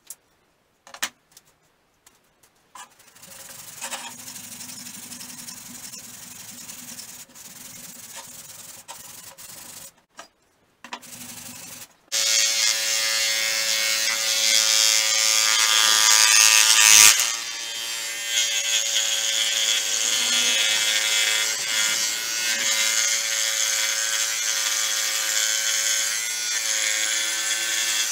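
Steel motorcycle brake disc being worked with a tool, a steady rubbing sound broken by edits. It is quiet for the first several seconds and much louder from about twelve seconds in.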